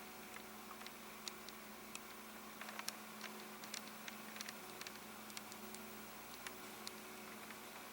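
Faint room tone: a steady electrical hum under a light hiss, with scattered small clicks and ticks.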